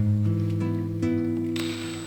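Background music with plucked acoustic guitar, notes held and changing every half second or so.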